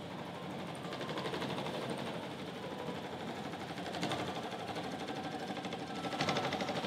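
Small benchtop electric scroll saws running with a fast, even buzzing chatter. The sound swells about a second in, again around four seconds, and most strongly near the end.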